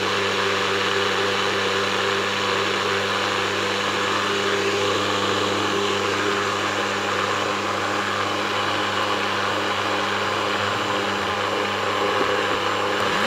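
Personal bullet-style blender motor running steadily without a break, blending soaked sea moss and water into a smooth gel.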